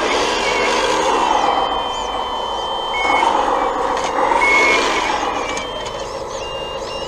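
1/14-scale hydraulic RC bulldozer working, its pump and motors whining with a pitch that rises and falls twice, with a few short high beeps over it.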